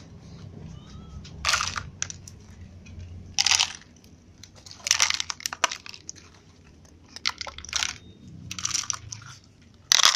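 Dry cat kibble being handled in a hand and in clear plastic cups: a series of short, loud crunching rustles, about eight in all. A cat meows faintly about a second in.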